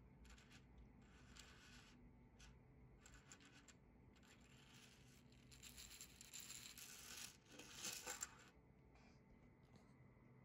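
Faint clicking, rattling and scraping of a 3D-printed articulated plastic octopus toy, its jointed leg segments knocking together and rubbing on a wooden tabletop as it is handled and lifted. The rattling is densest and loudest from about five and a half to eight seconds in.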